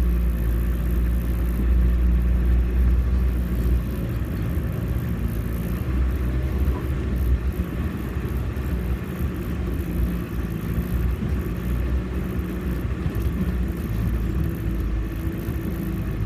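Off-road 4x4's engine running steadily at low revs, with a deep rumble that eases after about four seconds.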